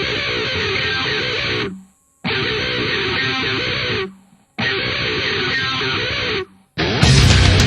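Guitar music: a guitar phrase played three times, each about two seconds long with a short silence between, then near the end a louder, heavier full-band section begins.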